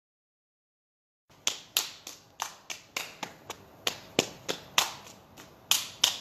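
The sound cuts out completely for about the first second. Then comes a steady run of sharp slaps, about three a second and uneven in loudness: hands slapping and patting the legs in a self-massage exercise.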